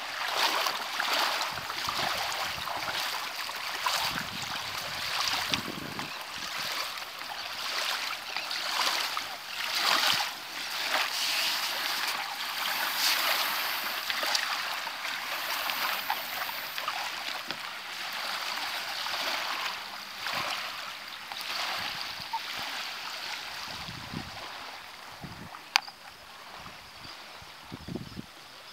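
Small waves washing at the shoreline, a rushing hiss that swells and eases every second or so, with one sharp click near the end.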